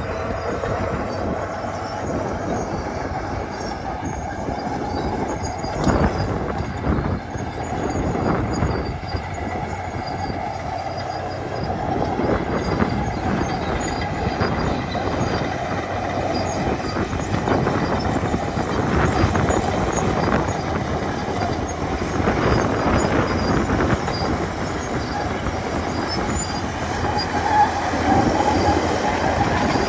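Komatsu D61EX crawler dozers roaring loud: diesel engines running steadily under load, with irregular knocks from the machines throughout.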